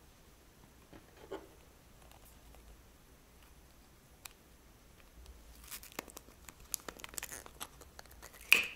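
Plastic piping bag crinkling as it is handled, first a couple of isolated clicks, then a scattered run of crackles and clicks from about halfway, the loudest one near the end.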